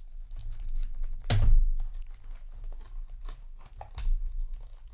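A cardboard booster display box being opened by hand: packaging tearing and crackling in short bursts, with one heavy thump about a second and a half in.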